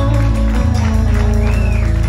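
A live rock band's drums, bass and electric guitar holding a low sustained chord, with a fast, even pulse in the low notes from about a second in, as at the close of a song.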